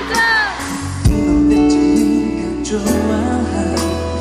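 Live pop ballad: a male singer's voice over band accompaniment with guitar, the voice gliding through a short phrase at the start before held instrumental tones carry on.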